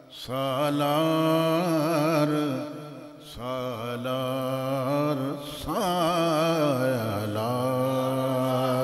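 A man's voice chanting a line of Persian devotional verse unaccompanied, in long, drawn-out wavering notes. It comes in three phrases with brief breaths between.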